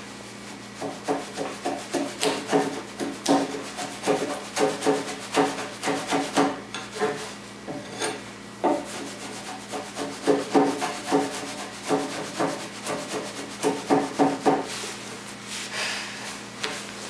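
A metal hand tool scraping back and forth across a green white-pine tenon, trimming the rough saw-sliced wood. The quick strokes come about three a second, in runs of a few seconds with short pauses between.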